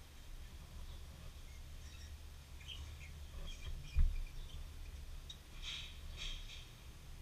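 Graphite pencil scratching lightly on paper in short strokes, in two bursts, with a single dull bump about four seconds in, over a low steady hum.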